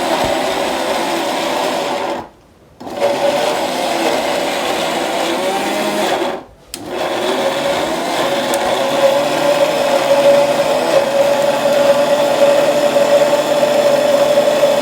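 Hindustan 1000-watt mixer grinder motor running at speed, grinding ginger, onion and garlic with water into a paste: a steady whine with a hum. The sound cuts out abruptly twice, for about half a second each.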